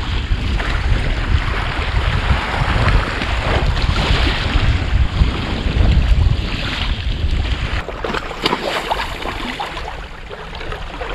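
Wind buffeting the microphone over waves washing on a beach. The wind rumble eases about eight seconds in, and a few short clicks follow.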